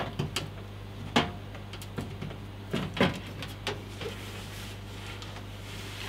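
Irregular clicks and knocks of a motherboard being worked into an upright steel PC case and onto its standoffs, the strongest right at the start and about a second in.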